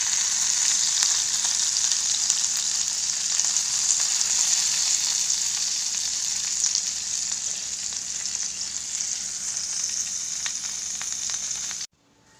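Egg-coated stuffed squid sizzling in hot coconut oil in a pan, a steady frying hiss that cuts off abruptly near the end.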